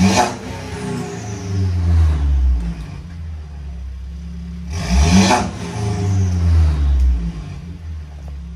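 Mercedes-Benz E250's 2.0-litre turbocharged four-cylinder revved through an aftermarket exhaust with downpipe and Varex valves: two sharp blips of the throttle, one at the start and one about five seconds in, each dropping back, then settling to a steadier idle near the end.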